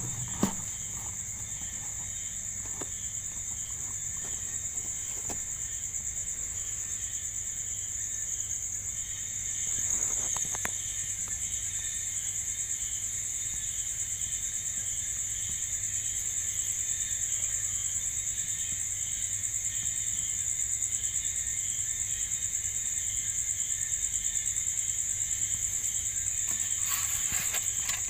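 Crickets chirping at night: a steady high trill with a second, slower pulsing chirp beneath it, over a low steady hum. There is a single sharp click about half a second in.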